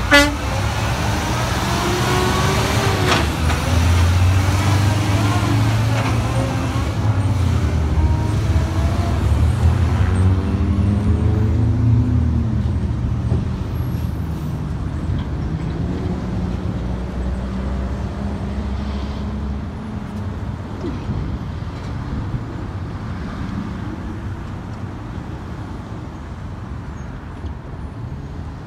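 Road traffic: cars and trucks driving across and past a railroad crossing, engines rising and falling in pitch, with a sharp click at the very start. The traffic sound fades gradually over the second half.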